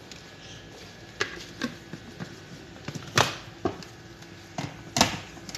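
Scattered knocks and clicks of a plastic blender jar and its lid being handled, with frozen berries inside, about seven in all. The two loudest come about three seconds in and near the end. The blender motor is not running.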